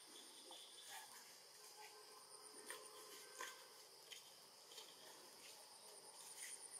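Faint insect chirring from the surrounding forest, a thin high trill held steady, with a few short clicks and chirps scattered through it.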